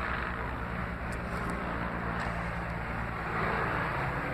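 A helicopter running: a steady drone with a fast, even low pulsing from the rotor.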